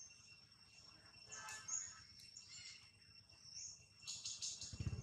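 Faint outdoor ambience: a steady high insect drone with short bird chirps scattered through it.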